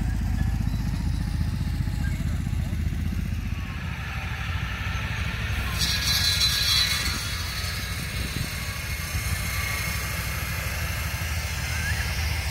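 An engine running steadily with a low, pulsing rumble. A hiss comes in sharply about six seconds in, and voices can be heard faintly.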